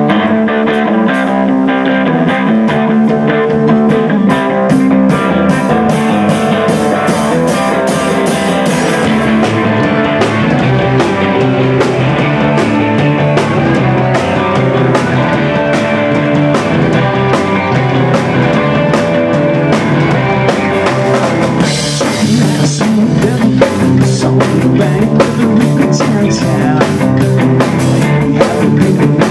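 Live rock band playing: distorted electric guitars over a drum kit keeping a steady beat. The cymbals come in louder about three quarters of the way through.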